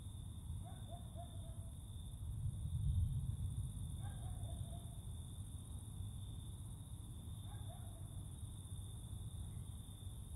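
Night ambience: an owl hooting three times, each a short run of slightly falling notes, over the steady high chirring of crickets. A low rumble underneath swells briefly about three seconds in.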